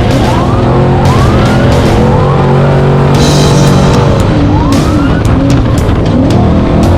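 Background music mixed with off-road race vehicle engines revving, their pitch rising again and again.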